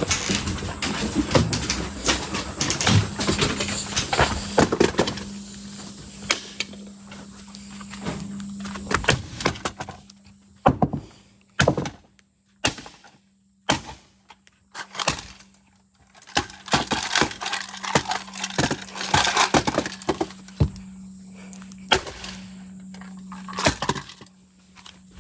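Hammer blows on an electric alarm clock, its plastic casing cracking and breaking apart. The blows come in irregular clusters with quieter gaps between them, over a steady low hum.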